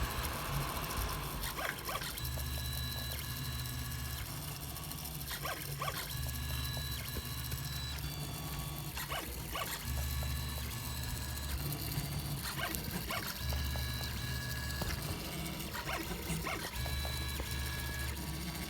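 3D printer's stepper motors running in stop-start moves with a low hum and a steady high whine, with scattered clicks, printing at about two and a half times normal speed.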